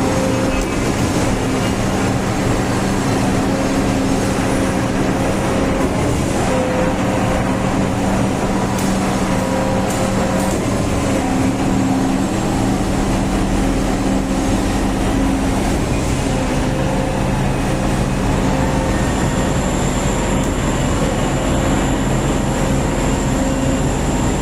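Continuous mechanical noise: a steady drone with a constant low hum, a deeper rumble joining about halfway through, and a thin high whine coming in later.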